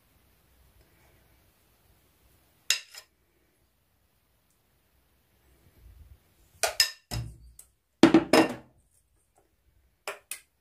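Metal spoon clinking, knocking and scraping against a dish while cake batter is scooped and spooned out: one clink about two and a half seconds in, a cluster of knocks and scrapes a little past the middle, and two short clinks near the end.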